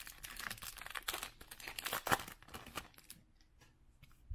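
A foil Topps 2020 Big League baseball card pack wrapper being torn open and crinkled by hand. The crackling dies down after about three seconds as the cards are slid out.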